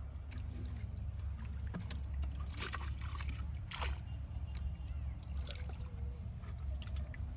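Water sloshing and splashing, with two louder splashes about two and a half and four seconds in, over a steady low rumble.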